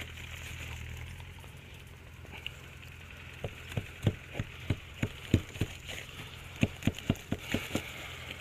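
A knife sawing through a crusty French bread loaf: a run of short, sharp strokes, about three a second, starting about three and a half seconds in and stopping near the end.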